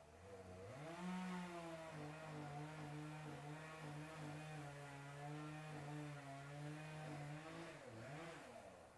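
Chainsaw engine revving up and held at a steady high pitch under throttle for several seconds, then dropping and blipping once before it stops.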